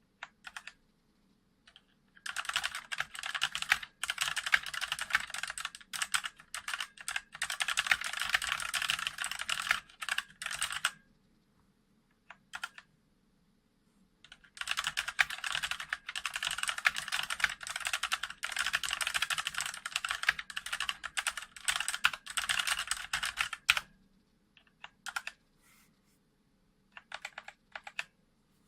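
Fast typing on a Thinkway CROAD K38 hot-swap mechanical keyboard: two long runs of rapid keystrokes, each about nine seconds, with a pause between them and a few single key presses around them.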